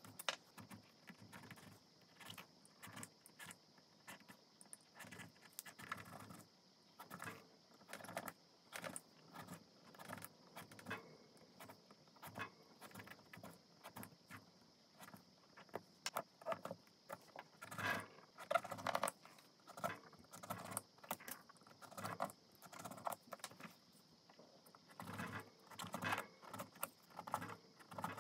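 Small yellow-handled carving knife cutting into a raw pumpkin, with irregular crisp crunches, scrapes and clicks, a few each second, over a faint steady high hiss.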